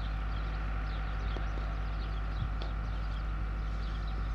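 Steady outdoor ambience: a constant low rumble and hum, with many small bird chirps scattered through it.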